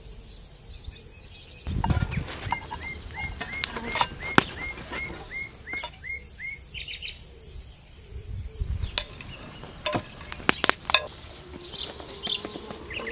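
Rural outdoor ambience: a small bird repeating a short downward chirp about three times a second, then a second run of higher chirps, over a steady high insect buzz, with a few sharp knocks in between.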